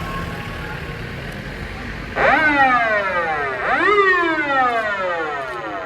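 Metropolitan Expressway patrol car's electronic siren giving two wails about two seconds in, each rising sharply and falling slowly: a brief courtesy 'service siren' rather than an emergency run. Before it, a low vehicle rumble.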